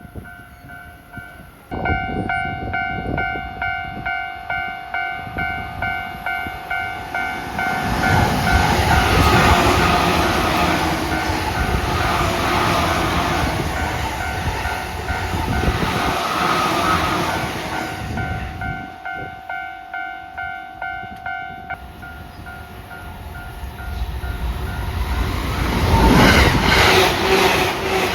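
Japanese level-crossing warning bell ringing about twice a second while an electric commuter train passes at over 100 km/h, a loud rush of wheels and clatter that swells and fades. After a break the bell rings again and a second train starts rushing past near the end.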